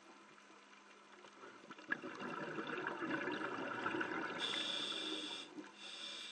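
Scuba regulator exhaling underwater: a rush of gurgling, crackling bubbles starting about two seconds in and lasting a few seconds. A high steady whine joins near the end, breaking off once briefly.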